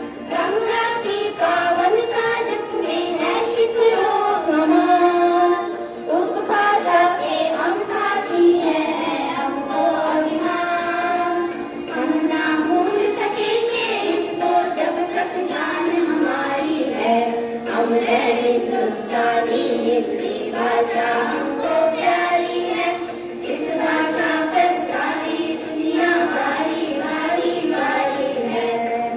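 A group of children singing a Hindi song together in chorus, the voices continuing without a break.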